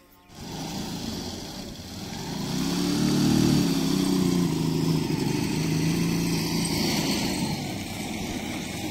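Motorcycle loader rickshaw's engine running, growing louder about two seconds in and then holding a steady drone.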